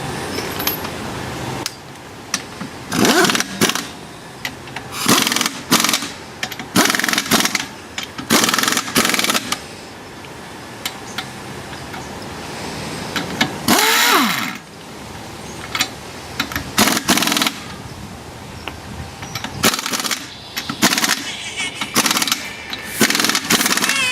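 Power impact wrench running in short bursts, about a dozen of them, as it spins lug nuts off and on the wheels. One longer run about two-thirds of the way through winds down with a falling pitch.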